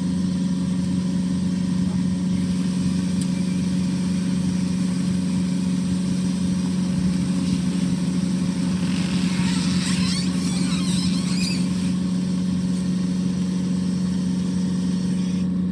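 Boat engine running steadily, an even low drone with no change in speed.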